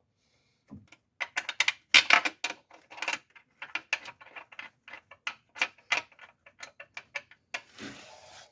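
Irregular metal clicks and ticks as a bolt is worked into the intake manifold by hand, ending with a short rustle.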